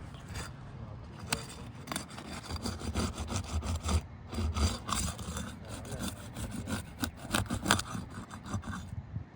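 Tools scraping and rubbing against roof shingles, with irregular sharp clicks and knocks, over a low rumble.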